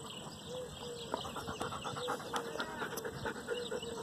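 Soft, short animal calls repeating every half second or so, with faint clicks and rustling.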